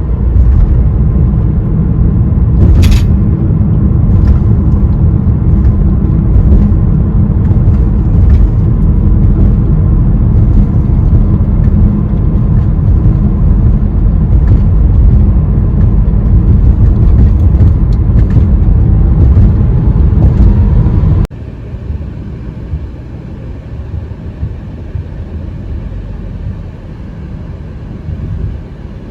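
Steady, loud rumble of a car being driven, heard from inside the cabin. About two-thirds of the way through it cuts off suddenly to a quieter, similar road noise.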